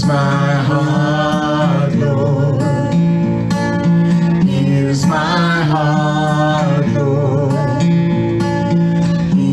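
A woman and a man singing a worship song together, accompanied by a Takamine acoustic guitar.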